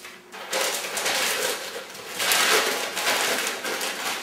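Sheets of packing paper rustling and crinkling loudly as they are folded around a pot, starting about half a second in.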